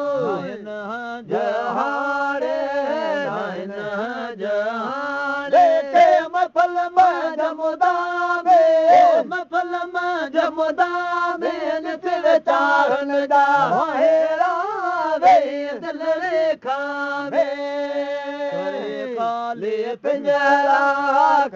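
Male voice chanting a Sindhi molud, a devotional song in praise of the Prophet. It holds long notes and winds up and down in pitch in melismatic runs.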